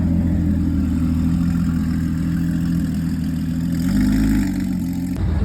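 Car engine running with a steady deep drone, swelling briefly about four seconds in, then cutting off suddenly near the end.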